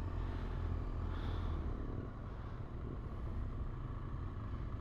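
BMW R1200GS motorcycle's boxer-twin engine running steadily at a low road speed, a low rumble that eases off slightly about two seconds in.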